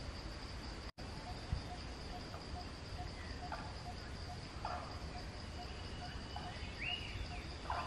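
Insects, crickets or cicadas, trilling in one steady high drone, with a short low note repeating about three times a second. A few brief chirping calls from animals sound towards the middle and end. The sound cuts out for an instant about a second in, and there is a low knock soon after.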